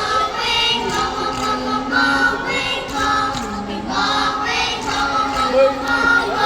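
A children's choir singing with musical accompaniment, sustained sung notes over a steady bass line.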